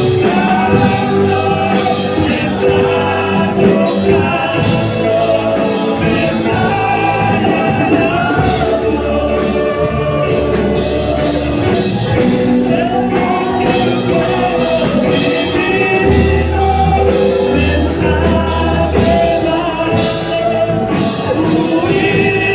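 A worship song: singing over a band with drums and a steady bass.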